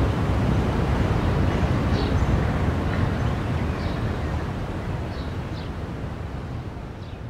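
Outdoor street ambience: a steady low rumble with short high chirps about once a second, slowly fading out.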